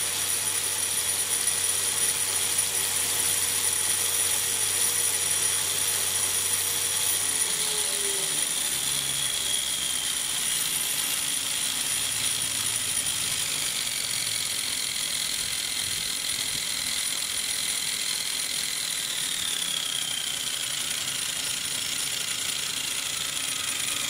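Electric motor driving a homemade RC helicopter main rotor gearbox, the gears running with a steady whirring, rattling mechanical noise over a high whine. From about a third of the way in, the whine drops in pitch several times as the motor slows and the rotor head spins down to a stop near the end.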